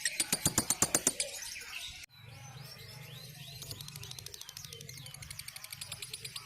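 Lovebird's long 'ngekek' chatter: a loud, rapid trill of sharp repeated notes, about eight a second, that stops a little over a second in. After an abrupt cut about two seconds in come softer bird calls, falling whistled notes and a faint fast chatter, over a low steady hum.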